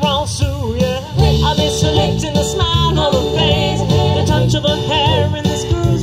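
Live retro-style band music: several voices singing held, wavering notes in harmony over a bass line and drums.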